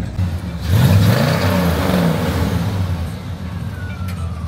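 A car engine accelerating, rising suddenly about a second in and then fading away, over a steady low engine rumble.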